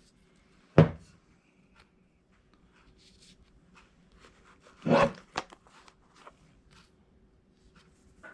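A wooden wedge and a claw hammer with a hickory handle being handled as the wedge is held against the head: a sharp knock about a second in, a louder short knock about five seconds in, and faint clicks and rubs between.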